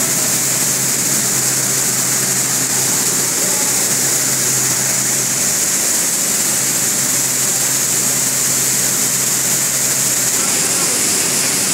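Steady din of processing-plant machinery running: electric motors and grain-processing machines, with a steady low hum that fades near the end.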